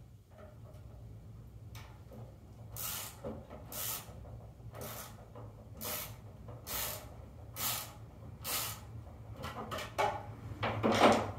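10 mm wrench tightening nylock nuts on a mounting bracket: about seven short noisy strokes roughly a second apart, then a louder clatter near the end.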